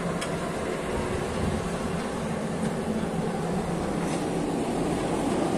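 Cable-car ropeway machinery running, with a steady rumble and a faint hum.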